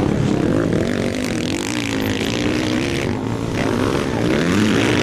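Several motocross bikes' engines revving hard as they race past, their pitch rising and falling, with one climbing steeply about four seconds in.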